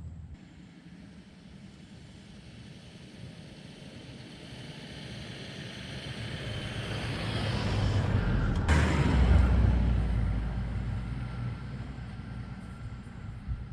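A vehicle approaching and passing: a rumbling engine and road noise that grow louder for several seconds, peak a little past the middle, then fade away.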